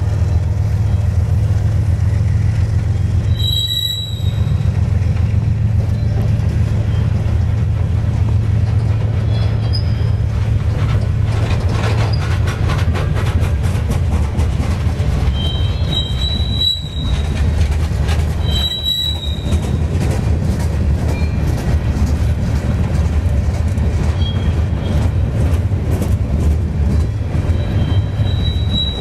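Freight train cars rolling past: a steady low rumble of steel wheels on rail with rapid clicking, and short high-pitched wheel squeals four times, about 4 s in, around 16 and 19 s, and near the end.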